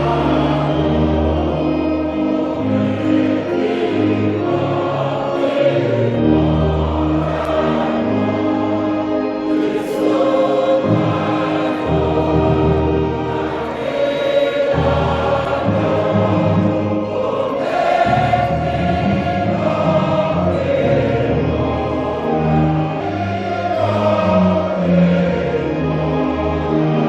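Choir singing in harmony over a sustained low instrumental accompaniment, with the chords changing every second or two.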